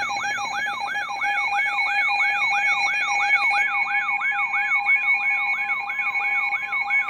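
Weather alert radio's siren-style alarm sounding for a tornado warning: a rapidly repeating falling sweep, about three and a half a second, over a steady high tone.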